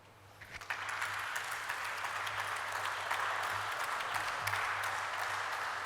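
Audience applauding, building up about half a second in and then keeping up steadily.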